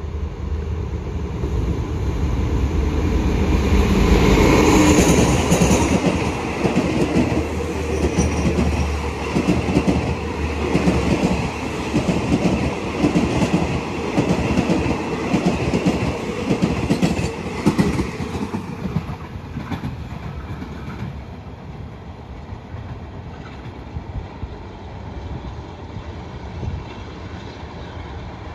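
Alsthom diesel-electric locomotive running past on a passenger train, its engine loudest about four seconds in, followed by the coaches' wheels clicking rhythmically over the rail joints, which fades away after about eighteen seconds.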